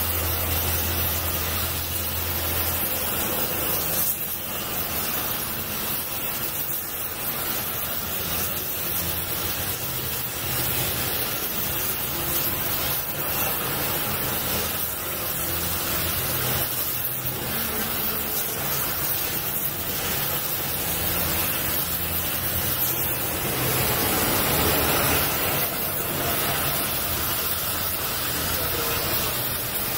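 Oxy-fuel gas torch flame hissing steadily as it heats the steel of a scrollwork gate.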